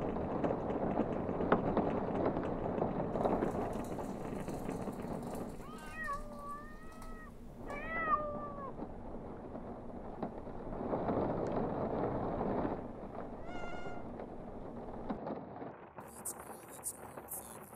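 A cat meowing three times: two drawn-out meows that rise and fall, about six and eight seconds in, and a short, fainter one near fourteen seconds, over a steady background noise.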